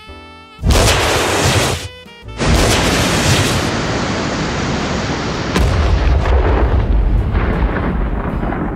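Rocket launch roar as a sound effect. It starts suddenly about a second in, breaks off briefly, then runs on as a heavy rumbling roar that eases off near the end.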